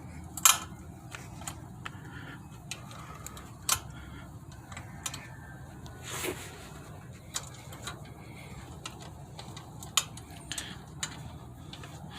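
Scattered metal clicks and clinks as the hitch-mounted bike rack's pin and clip are worked loose by hand, the sharpest about half a second in, over a low steady hum.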